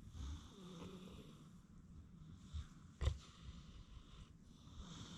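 Domestic pigs snoring in their sleep, slow rasping breaths swelling near the start and again near the end. A single sharp click or knock about three seconds in is the loudest sound.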